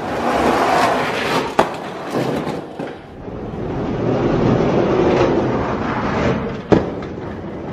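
Two Hot Wheels die-cast monster trucks rolling down a long orange plastic track, a rattling rumble of wheels on plastic that swells and fades. There is a click about a second and a half in and a sharp knock near the end.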